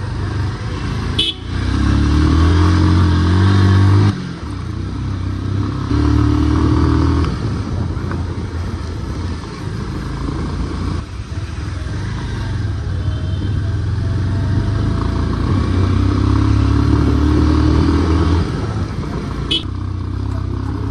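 Bajaj Pulsar 150 single-cylinder engine running under way, heard from the rider's seat, with several surges of acceleration that rise in pitch and then ease off. Two sharp clicks, one early and one near the end.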